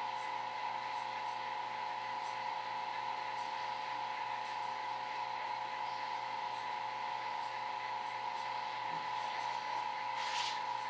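Steady machine hum with a constant high whine, and two brief scraping rustles near the end.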